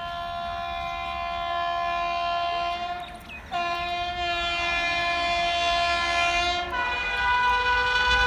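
Indian Railways WAP7 electric locomotive hauling a Rajdhani Express at speed, sounding its multi-tone air horn in long blasts as it approaches. The horn breaks off briefly about three seconds in and changes pitch near the end, and it grows louder as the train closes in.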